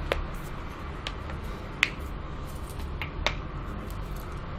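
A person's own joints cracking: several short sharp pops, the loudest about two seconds in, over a low steady background hum.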